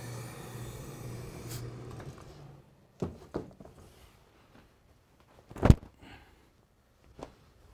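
Steam pressing with a hose-fed iron: a steady hum and hiss that stops after about two and a half seconds. Then a few wooden knocks, the loudest about two-thirds of the way through, as a padded pressing buck is handled and set down on the table.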